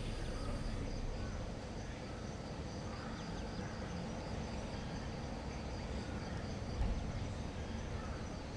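Insects chirping steadily in high, even tones over a low background rumble, with one brief low thump about seven seconds in.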